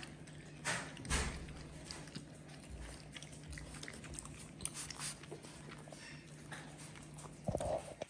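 Animal claws clicking and tapping on a stone countertop at close range, a few scattered clicks, over a steady low hum; a brief louder sound near the end.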